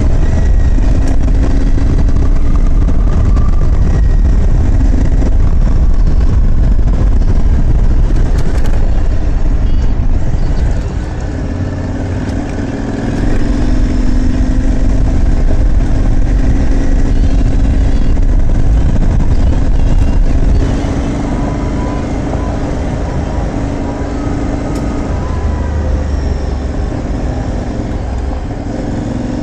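Aprilia Tuareg 660's parallel-twin engine running under way on a dirt trail, with heavy wind rumble on the microphone. The engine note eases off about a third of the way in, picks back up, then eases off again about two-thirds of the way through.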